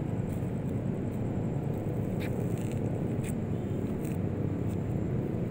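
Steady low rumble of distant city traffic, with a few faint clicks over it.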